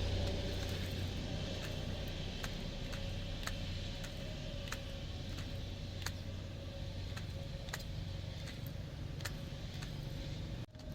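Small electric RC monster truck driving, its motor giving a steady whine, with light ticks about twice a second. The sound drops out briefly near the end.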